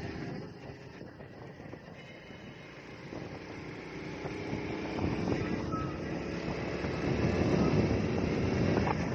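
Honda motorcycle engine running as the bike is ridden along a street. The sound grows louder from about three seconds in.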